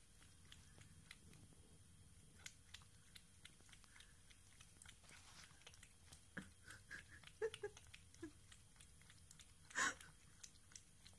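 Cat lapping milk from a small metal dish: faint, quick wet clicks of the tongue, a little louder for a stretch after the middle, with one louder brief noise near the end.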